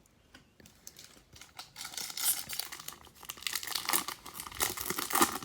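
Foil wrapper of a baseball card pack crinkling and tearing as it is opened, starting faint and growing into steady rustling with small crackles from about two seconds in.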